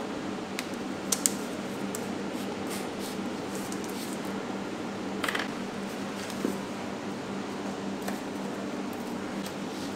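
Steady hum of room ventilation with a few light clicks and taps from handling chocolate lipstick sticks and a clear plastic ring on a marble counter. The sharpest clicks come about a second in.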